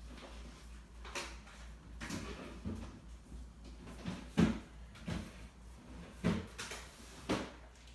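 A few irregular soft knocks and thumps, like a cupboard or drawer being handled, the loudest about four and a half seconds in, over quiet room noise.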